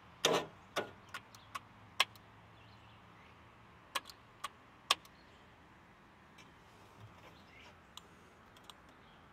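A string of short, sharp clicks and knocks, about eight in the first five seconds, from the dash controls of an Agway GT 1846 garden tractor as a start is tried. The engine does not crank or run: its battery is weak and it needs a jump.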